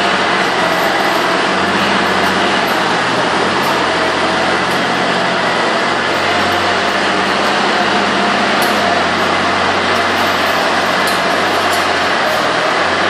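Tractor-drawn Falke feed mixer wagon running steadily while it lays feed down the alley: a constant loud mechanical drone with a steady hum and a faint whine.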